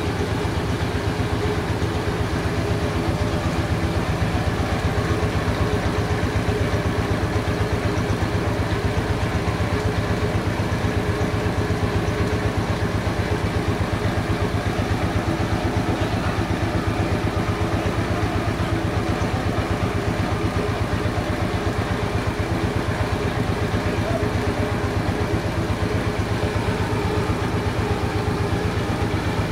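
An engine running steadily at constant speed with a fast, even pulsing, most likely the engine driving the sawmill.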